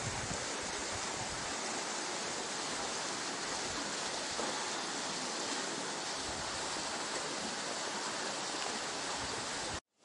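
Wind blowing steadily through leafy trees over a rippling lake, a steady rushing hiss, with low wind buffeting on the microphone in the first second. It cuts off abruptly near the end.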